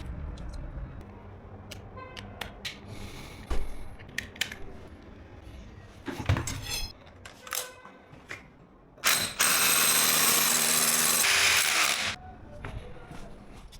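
Tool work: scattered clicks, taps and knocks of tools and parts being handled, then a power tool runs for about three seconds and stops, louder than everything else.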